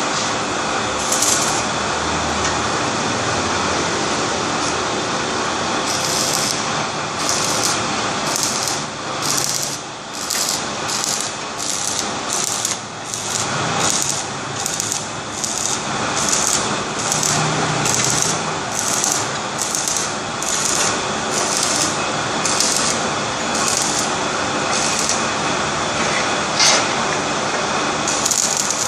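Automatic multi-wire clay brick cutting machine running: a steady mechanical din with a short hiss repeating about once a second.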